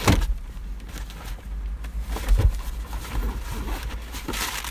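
Package being opened by hand: rustling and handling of the wrapping, loudest right at the start, with a low thump about two and a half seconds in.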